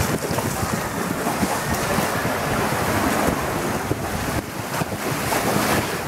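Rushing water of a log flume channel mixed with wind buffeting the microphone as the log boat moves along, a steady dense rush of noise.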